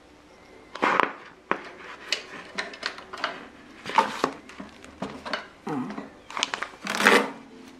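Paper pages of an instruction manual rustling and flapping as they are turned, mixed with sharp clicks and knocks of hands on the plastic air fryer and its basket handle. The noise comes in irregular bursts, loudest about a second in, at four seconds and at seven seconds.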